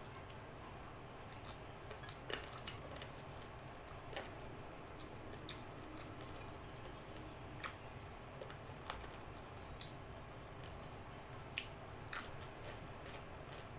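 Close-miked mouth sounds of someone eating rice and chicken curry by hand: soft chewing with scattered sharp wet clicks and smacks, about one a second, over a steady faint hiss.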